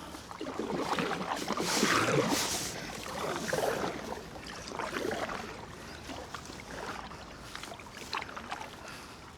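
Kayak paddle blades dipping and splashing in river water, in irregular strokes, loudest about two seconds in and then fading.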